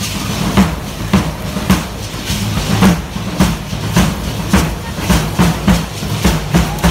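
Matachines dance accompaniment: a steady, even beat of about two strikes a second, with a continuous low drone under it, and the dancers' rattling and clacking in time with the beat.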